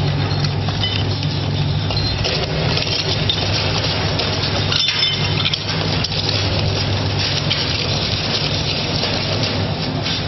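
Twin-shaft shredder running, its hooked cutter blades crunching and tearing material with irregular cracking and clinking over a steady low drone from the drive.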